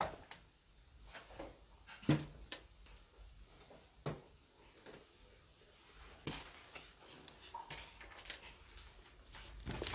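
Quiet footsteps and scuffs on a debris-strewn floor, with a handful of small irregular knocks and clicks spread through quiet stretches.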